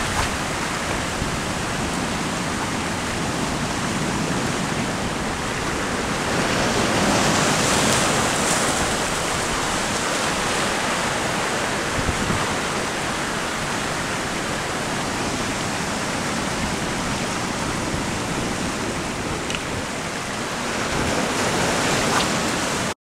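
Sea surf washing and breaking over shoreline rocks as a steady rush of water, swelling louder as a wave breaks about six seconds in and again near the end.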